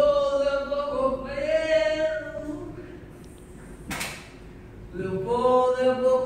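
Unaccompanied singing in long held notes, in two phrases with a pause between them. A short sharp click about four seconds in.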